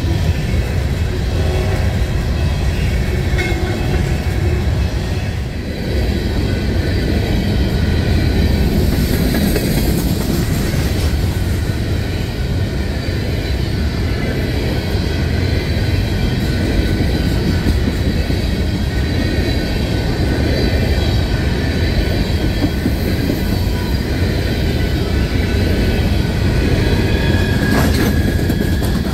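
Empty steel coal hopper cars of a freight train rolling past: a steady rumble of wheels clattering over the rail joints, with a faint high wheel squeal at times.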